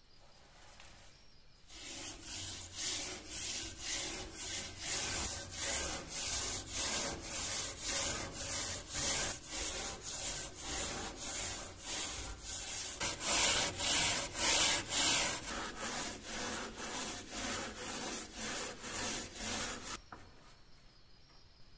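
Metal scouring pad scrubbing a rusty steel dagger blade in a shallow tin of liquid, rubbing back and forth at about two strokes a second to scour off the rust. The scrubbing starts about two seconds in, is loudest a little past the middle, and stops shortly before the end.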